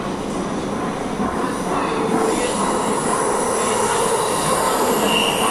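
Metro train running through a tunnel, heard from inside the passenger car: a steady rumble and rushing that grows louder about two seconds in. Thin high wheel squeal comes in over it.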